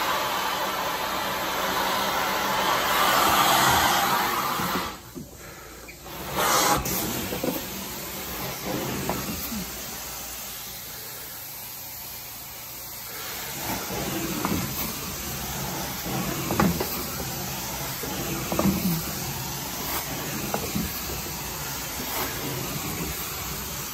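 Carpet-cleaning extraction wand and hose hissing under strong vacuum suction. It is loudest for the first few seconds, drops out briefly about five seconds in, then runs quieter with scattered light knocks and clicks.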